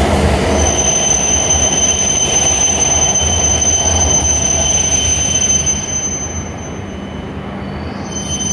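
E7 series Shinkansen train pulling out of a station and passing close by: a steady rumble of the moving cars with a thin high whine over it. The noise drops off about six seconds in as the last car clears.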